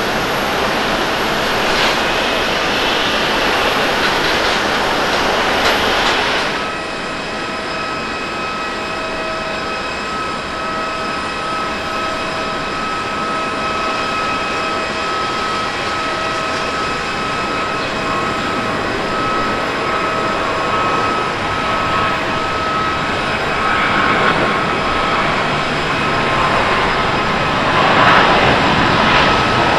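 Jet engine roar of a Boeing 767-300ER on the runway after landing, cut off abruptly about six seconds in. Then an Airbus A350-900's Rolls-Royce Trent XWB engines whine steadily at low thrust, and the sound swells near the end as the engines spool up for the takeoff roll.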